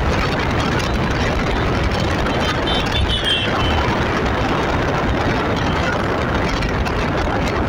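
Steady rushing noise from a vehicle moving along a road: wind on the microphone with engine and tyre noise beneath, and a short faint high-pitched tone about three seconds in.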